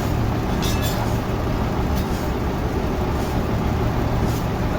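Sawmill machinery running steadily, a low engine-like drone with a constant hum, with a few brief high squeaks.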